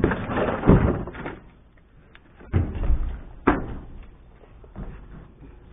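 Cardboard boxes and rubbish being shifted about in a dumpster: rustling and several thumps and knocks, the loudest in the first second, with sharp single knocks around three seconds in.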